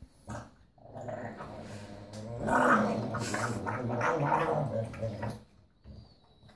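Pug growling over its food bowl while being touched during its meal: a low growl that starts about a second in, grows louder past the halfway point and stops near the end. It is a warning growl of a dog guarding its food.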